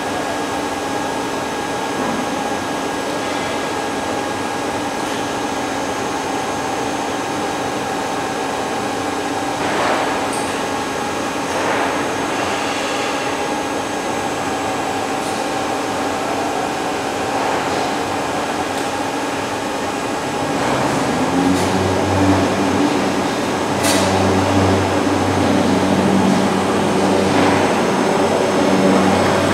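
Machinery of an automated pipe store running: a steady mechanical hum with a few sharp knocks. About twenty seconds in, a deeper motor drone joins and the sound grows louder.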